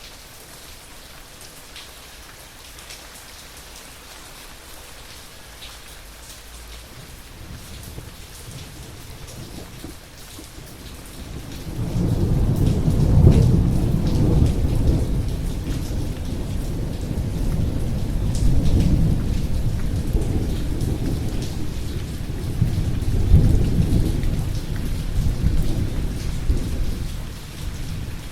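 Steady rain falling, with a long roll of thunder that swells in about halfway through and rumbles on in several surges before fading near the end.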